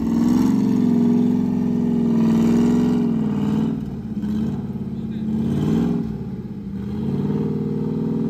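Car engine running at low revs, its pitch wavering slightly with light throttle and easing off briefly twice.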